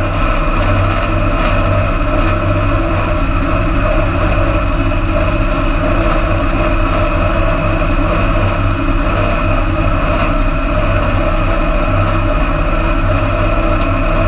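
Tractor engine running steadily at working speed, a low, even exhaust rumble, while it pulls a hay implement across the field.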